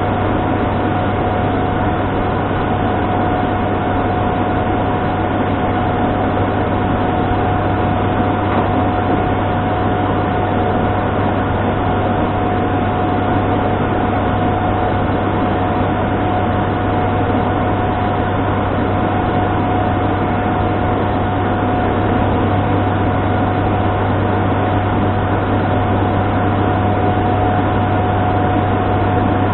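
ATR 72 twin turboprop cockpit noise in flight: a steady low propeller drone with a thin constant whine above it, unchanging throughout.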